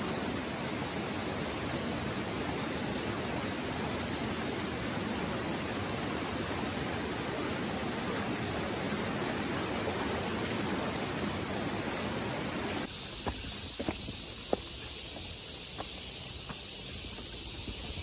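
Steady rush of flowing stream water. About 13 seconds in it cuts off suddenly to a quieter background with a few scattered sharp clicks.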